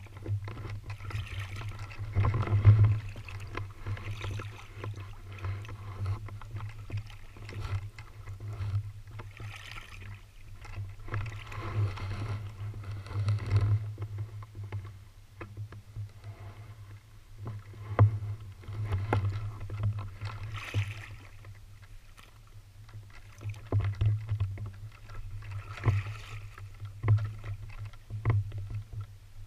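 Paddling a small boat along a creek: irregular paddle strokes swishing and splashing every few seconds over a steady low rumble of water against the hull, with small knocks.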